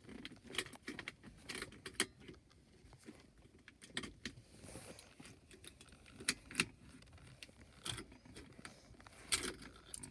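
A bunch of keys jangling, with irregular sharp metallic clicks and jingles as they are handled.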